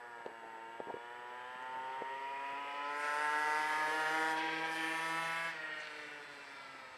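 A Yamaha Aerox 50cc two-stroke scooter with a Giannelli aftermarket exhaust riding past at speed. Its engine note climbs steadily as it approaches, is loudest for a couple of seconds, then drops in pitch and level past the halfway mark and fades as it rides away.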